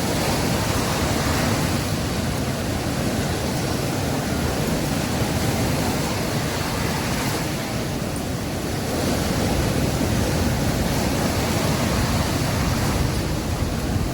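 Sea waves breaking and washing on a beach, a steady surf noise that eases slightly about eight seconds in and swells again a second later.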